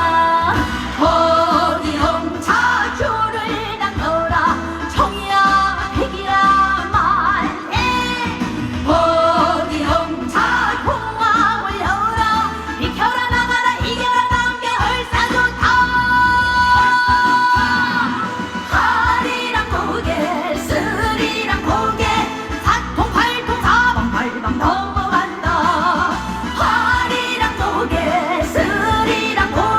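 A woman singing a Korean trot song live over loud accompaniment with a steady beat. She holds one long note about halfway through.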